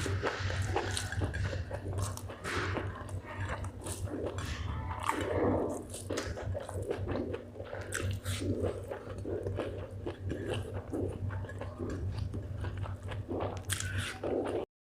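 Close-miked mouth sounds of chewing spicy chicken gizzard with rice: wet, crunchy bites and chewing in a steady rhythm of about two chews a second, over a low steady hum. The sound cuts off suddenly near the end.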